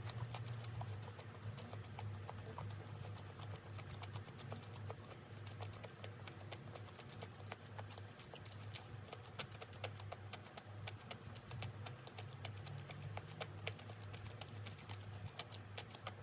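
Kitchen work sounds: many quick, light taps and clicks, like utensils or a knife on a board, over a steady low hum.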